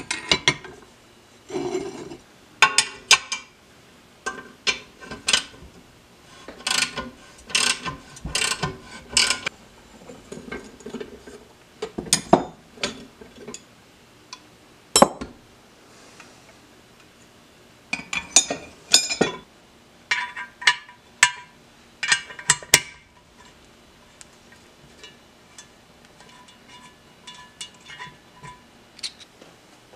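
Metal hand-tool clicking and clinking in irregular bursts as a threaded puller is worked on an aluminium motorcycle crankcase half, the clicks thinning out and getting quieter in the last few seconds.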